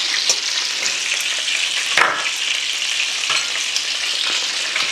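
Frikadellen (meat patties) frying in hot oil in a pan: a steady sizzle, with a few clicks and knocks, the loudest about two seconds in.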